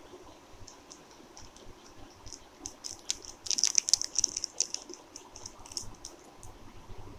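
Eno fruit salt fizzing in a glass of water: a crackle of tiny pops that swells to its busiest about three and a half seconds in, then thins out.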